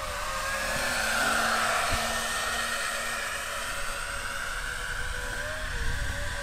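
Twin electric ducted-fan motors of a scratch-built RC Boeing 737 model whining as it makes a low pass, loudest about a second in and then fading as it flies away.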